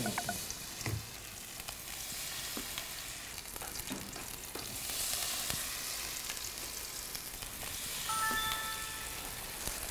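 Soybean-sprout pancake batter sizzling steadily as handfuls of it are laid into hot cooking oil in a frying pan.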